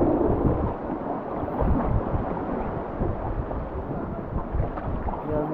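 Rushing river water on a rafting trip, with wind buffeting the microphone as a low, uneven rumble.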